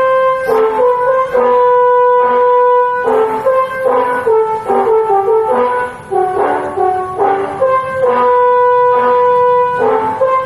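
Bus telolet horn, a set of switched air-horn trumpets, playing a tune: runs of short notes with two long held notes.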